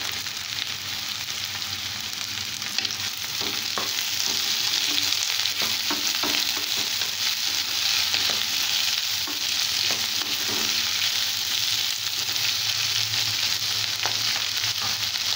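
Sliced ivy gourd and chopped onion sizzling in hot oil in a non-stick kadai, freshly added and sautéing. It is a steady frying hiss that grows louder about four seconds in, with a few light clicks scattered through it.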